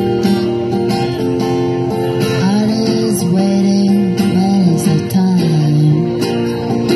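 Acoustic guitar strumming in a live duo performance, with a held melody line over it that slides up and down in pitch through the middle of the passage.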